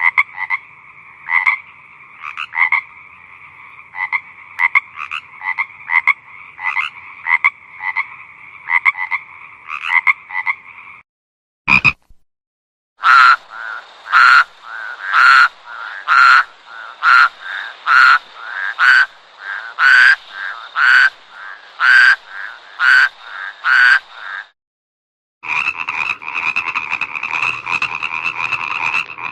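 Frogs croaking, in three stretches with short breaks between them. First come irregular croaks over a faint chorus, then louder croaks about once a second, and near the end a dense, unbroken chorus.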